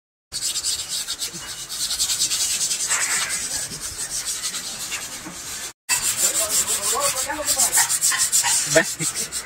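Rapid back-and-forth rasping strokes of an abrasive rubbed by hand over the steel of a scrap-metal sculpture's base.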